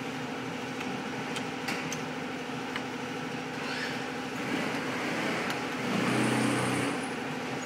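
Steady hum of running workshop machinery with a few light clicks; a deeper hum swells louder for about a second around six seconds in.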